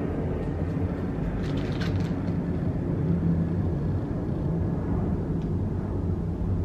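Airplane passing overhead, a steady low rumble heard from inside a house.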